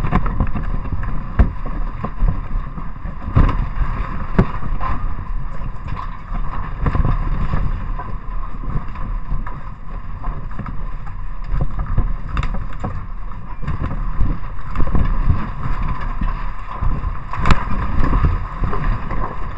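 Earthquake shaking picked up by a trail camera's microphone: a loud, continuous low rumble with dense rattling and knocking.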